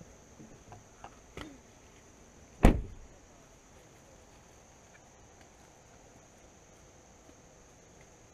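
A car door of an SUV slammed shut once, about two and a half seconds in, after a couple of light clicks of handling. A steady high buzz of insects runs underneath.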